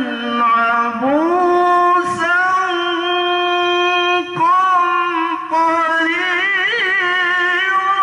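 A male qari reciting the Qur'an in melodic tilawah style into a microphone: long held notes with wavering ornaments, broken by two brief pauses about four and five and a half seconds in.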